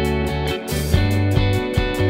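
Background pop song in an instrumental stretch between sung lines. Just under a second in, a short swell of noise leads into a heavier, pulsing bass beat.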